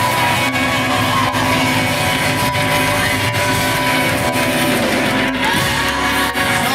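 Live gospel music from a choir's band, played loud with a steady beat, with some choir voices in it.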